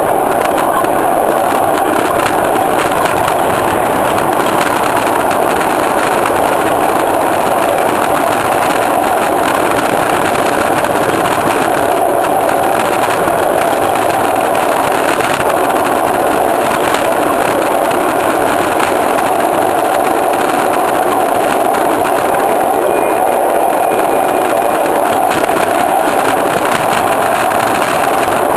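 Miniature railway caboose rolling along the track: a steady, loud rumble of its wheels on the rails, with faint clicks.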